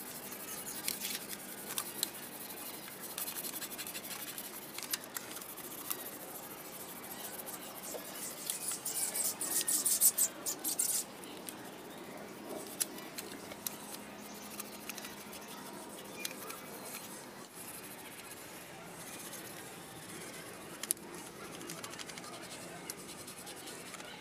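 A damp cloth scrubbing the rust-stained metal soleplate of an electric iron: irregular rubbing and scraping strokes, loudest and quickest for a few seconds near the middle. The scrubbing is a rust-removal clean with a chemical on the cloth.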